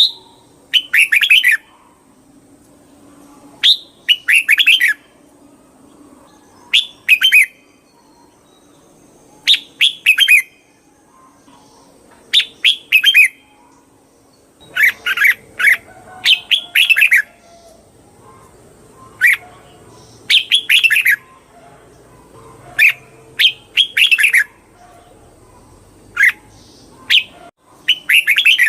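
Red-whiskered bulbul singing: short song phrases, one every two to three seconds, some coming in quick pairs.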